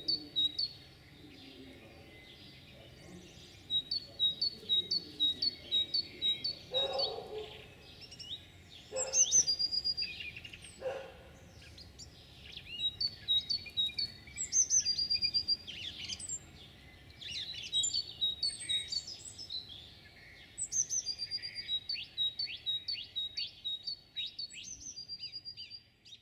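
Songbirds singing: repeated phrases of quick, high chirps and trills, several phrases overlapping. A few short, lower sounds come in around the middle.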